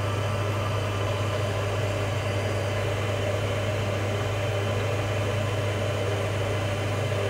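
Steady low machinery hum with an even hiss over it, unchanging throughout.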